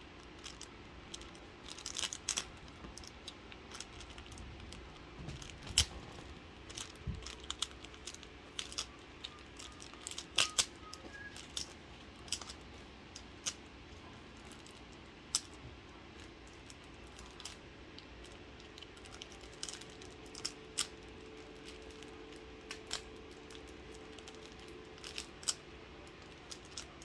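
Card packaging being handled and opened by hand: scattered sharp clicks, crinkles and small taps, some in quick clusters.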